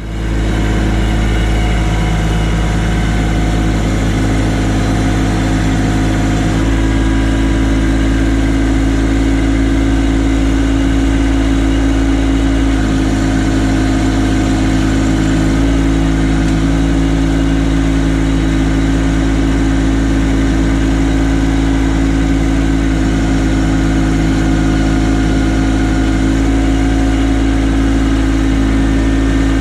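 Kubota LX2610 compact tractor's three-cylinder diesel engine idling steadily.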